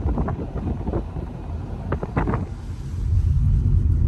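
Wind buffeting the microphone in uneven gusts. About three seconds in, this gives way to a steady low rumble of road and engine noise inside a moving car's cabin.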